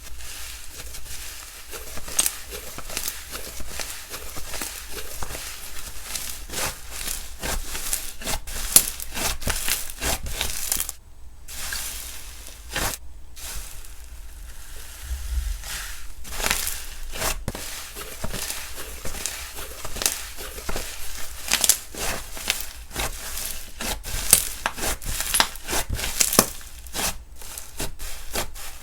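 Hands squeezing, stretching and pressing slime, making a dense run of crackling, popping clicks with two brief gaps near the middle.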